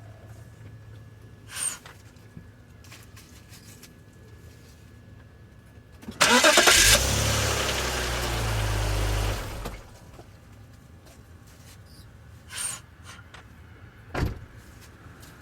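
BMW X5 E53 engine being started: a short burst of cranking as it catches, then it runs loudly for about three seconds before the sound falls back to a low background. A single sharp thump comes about a second before the end.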